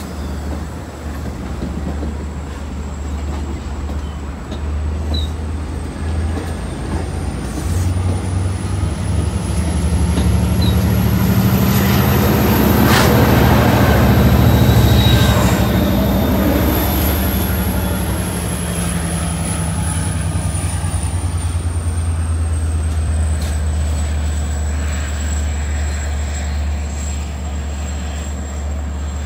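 Long Island Rail Road train of bilevel coaches passing close by, with its trailing DM30AC dual-mode locomotive's diesel engine growing loudest as it goes past about halfway through. A thin high squeal rises and then falls in pitch over the rolling noise.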